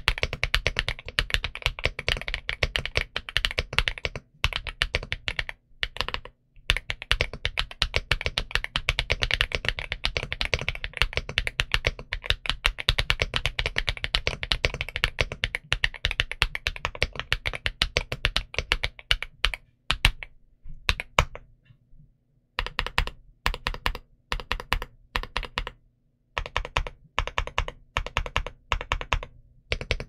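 Stock Yunzii B75 75% mechanical keyboard with Leobog Graywood V3 linear switches and double-shot Cherry-profile keycaps being typed on quickly: a dense, steady stream of keystrokes with a few brief pauses. Past the middle the typing grows patchier, stopping and restarting more often.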